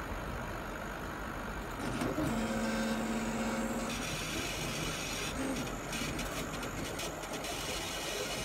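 40 W CO2 laser cutter running with a steady mechanical hum. About two seconds in, its stepper motors give a steady whine for a second and a half as the laser head travels to its start point, followed by a few seconds of short, irregular stepper sounds as it begins tracing the outline.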